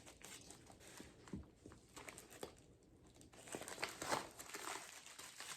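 Packaging being handled and opened by hand: faint crinkling and rustling with small clicks, busiest about three and a half to four and a half seconds in.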